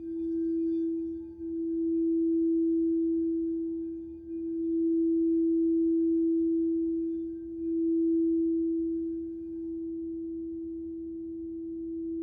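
Crystal singing bowl sounding one steady, pure low tone, held without dying away, its loudness swelling and dipping in slow waves every few seconds.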